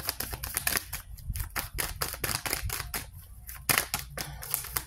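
A tarot deck being shuffled by hand to draw a clarifying card: a fast, uneven run of crisp card clicks and flicks.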